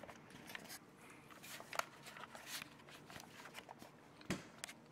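Handling noise of a camera being passed from hand to hand: faint rustling and scattered clicks, with a dull thump about four seconds in.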